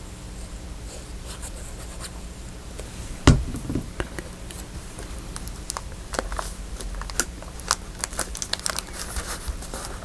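Paper being handled and crinkled by hand, with a single sharp knock about three seconds in and a run of small clicks and rustles over the last few seconds.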